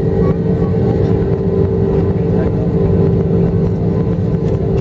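Airbus A321's jet engines running at taxi power, heard inside the cabin over the wing: a steady, even drone with a constant low hum.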